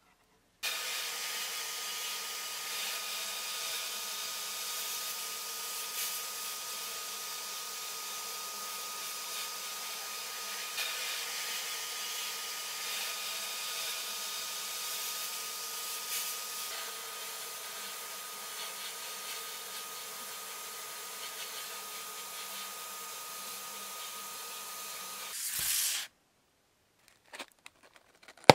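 Sandblasting gun in a blast cabinet hissing steadily as it strips the corroded surface off a brass panel. Near the end the blast swells briefly and then cuts off suddenly, followed by a few faint taps.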